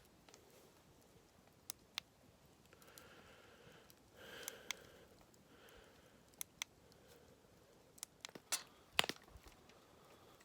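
Scattered light clicks and knocks of camp cookware and utensils being handled during cooking, with a quick cluster of sharper knocks about nine seconds in.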